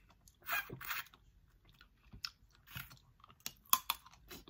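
Cooked crab from a seafood boil being cracked, picked apart by hand and eaten: an irregular run of crunchy snaps and wet crackles, with a cluster of sharper snaps about three and a half seconds in.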